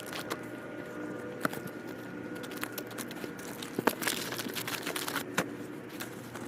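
Items being rummaged through and sorted by hand: scattered light clicks and knocks as objects are picked up and set down, with a louder burst of rustling about four seconds in, over a faint steady hum.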